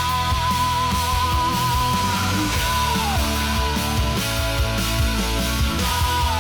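Instrumental rock music: distorted guitars over bass and drums, with a held lead line that wavers and bends downward in pitch twice.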